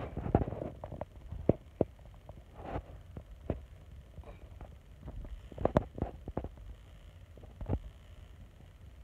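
Handling noise from a phone being held and moved: a low rumble with scattered soft knocks and clicks at irregular intervals, a cluster of them about six seconds in.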